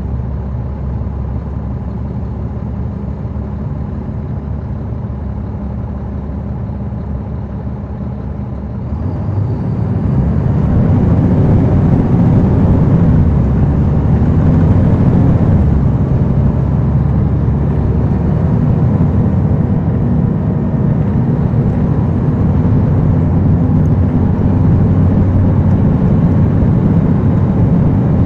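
Caterpillar C13 ACERT inline-six diesel of a NABI 40-SFW transit bus with its ZF six-speed automatic, heard from the rear seats inside the bus. It runs steadily, then about nine seconds in grows louder and deeper as the bus accelerates, and holds that heavier pull, without the howl these buses usually have.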